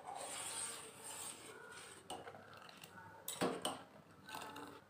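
Steel spoon stirring milk in a stainless steel pot: a scraping rub against the pot for about a second and a half, then a few short metallic knocks of spoon on pot, the loudest about three and a half seconds in.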